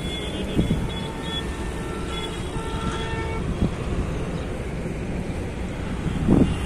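Steady road-traffic noise with vehicle horns honking now and then, over a continuous low rumble.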